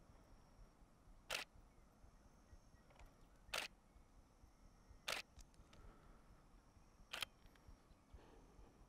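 Single-lens reflex camera shutter firing four single frames, about two seconds apart, each a short sharp click.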